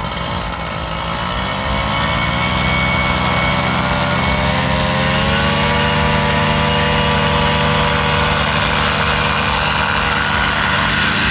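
Paramotor engine and propeller throttled up for a takeoff run, rising in pitch in two steps over the first few seconds, then held steady at high power.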